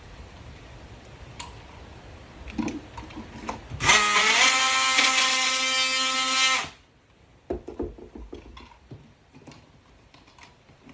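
Oscillating multi-tool cutting an outlet-box hole in drywall. About four seconds in it spins up to a steady high whine, runs about two and a half seconds and cuts off sharply. A few light knocks and taps come before and after it.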